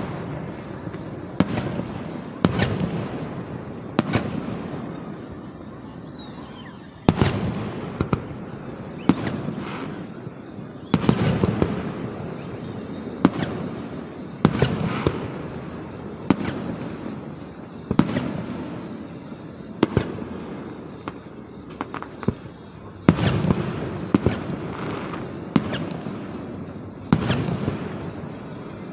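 Aerial fireworks display: a steady run of sharp bangs about every one to two seconds, each trailing off in a rumbling echo, with some crackling bursts.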